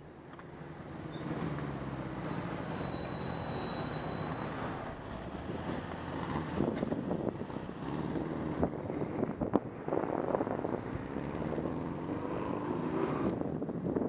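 Street traffic heard from a moving bicycle: nearby car and truck engines running, their pitch rising and falling, with a few sharp knocks near the middle.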